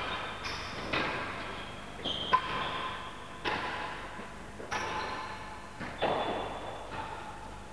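Real tennis balls being struck and rebounding off the walls and floor of an indoor court: a string of sharp knocks about a second apart, each followed by the echo of the enclosed hall, the loudest about a third of the way in.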